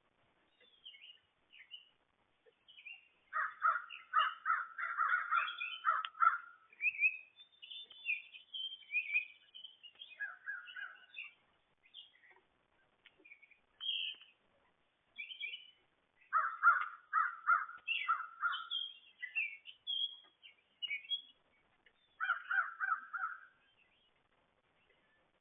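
Wild birds calling: four bouts of quickly repeated lower calls, the loudest sounds, with scattered short, higher chirps and slurred notes in between.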